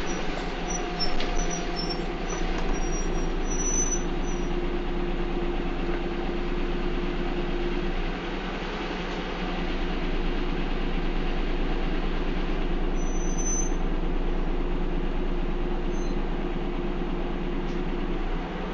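A bus heard from inside while it is moving, its engine and drivetrain running with a steady whine. Brief high squeaks and rattles come in the first few seconds and again about 13 seconds in.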